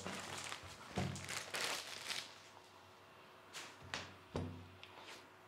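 Clear plastic bag crinkling as a mini PC is slid out of it, followed by a few soft knocks as the unit is handled on a table.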